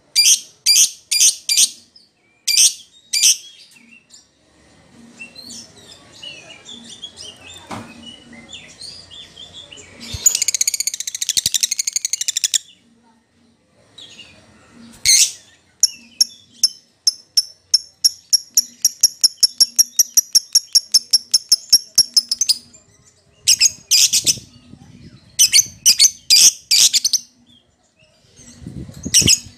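Agitated fighter-type lovebird singing: groups of sharp, high chirps, a dense chattering burst, and a long, fast run of ticking notes in the middle, with a brief pause before the chirping picks up again.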